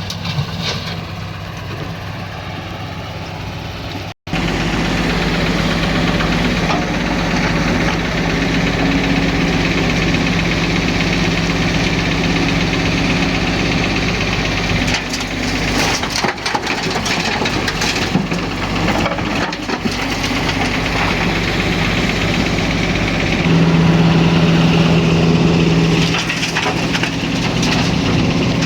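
Excavator's diesel engine running steadily under work, with scattered knocks and cracks of material being handled. The sound cuts out briefly about four seconds in and comes back louder. The engine note grows stronger near the end.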